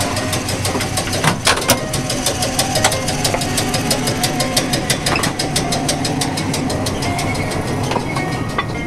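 London & Port Stanley interurban car No. 8, a 1915 electric railcar, rolling along the track overhead: steel wheels on the rails with a rapid, regular clicking throughout. A few sharper knocks come about a second and a half in.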